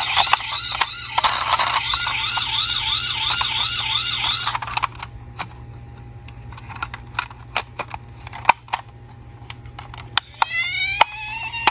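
Toy ambulance's electronic siren sounding a fast warble, which cuts off about four and a half seconds in. Sharp plastic clicks and knocks follow as the toy is handled and its rear doors are opened. Near the end a second siren tone starts with a rising wail.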